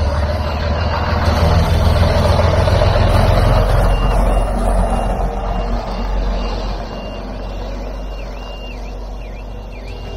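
A vehicle's reversing alarm beeping over and over, about two beeps a second, over the rumble of a diesel bus engine running. The engine fades from about halfway through, leaving the beeping plainer.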